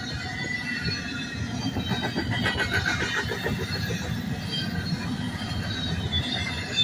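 Double-stack intermodal well cars of a freight train rolling past at speed: a steady steel-wheel rumble on the rails with a shrill wheel squeal over it, loudest in the middle.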